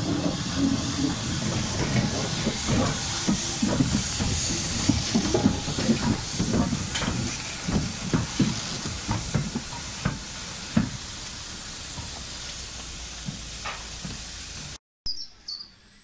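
Lancashire & Yorkshire Railway 0-6-0 steam locomotive No. 52322 moving slowly past, with a loud steady hiss of steam and a string of irregular knocks that thin out after about eleven seconds. The sound cuts off sharply near the end, leaving faint birdsong.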